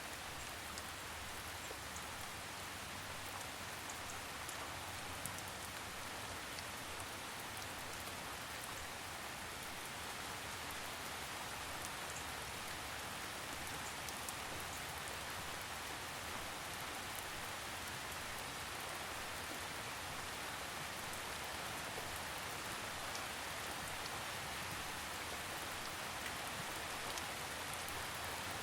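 Steady rain falling on a surface, an even hiss with scattered fine drop patter.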